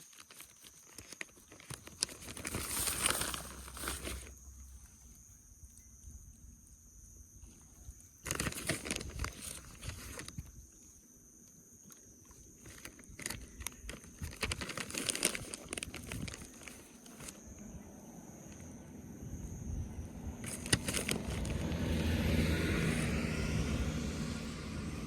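Outdoor walking sounds: footsteps and rustling with scattered knocks, and a vehicle passing about twenty seconds in.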